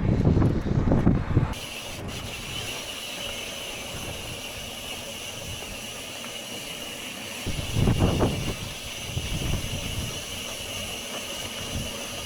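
Strong gusting wind buffeting the microphone in low rumbles, loudest at the start and again about two-thirds of the way through, over a steady high hiss.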